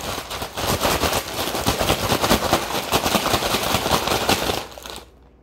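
Zip-top plastic bag of ice and salt, holding a smaller sealed bag of milk mixture, shaken hard and fast: dense crinkling of plastic and rattling ice, the shaking that freezes the milk into ice cream. It stops just before the end.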